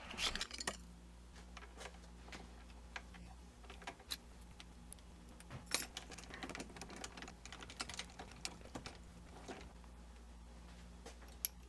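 Faint scattered clicks and light metal taps as screws are backed out of a mini metal lathe's compound slide and its degree-scale plate is taken off, over a low steady hum.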